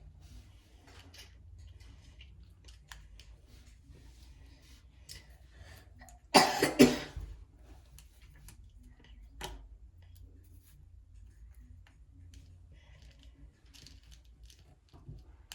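Small plastic pieces and packaging being handled, with faint scattered clicks and rustles. About six seconds in comes one loud, short burst lasting under a second, such as a cough or a sharp crinkle of plastic, and a single clearer click follows a few seconds later.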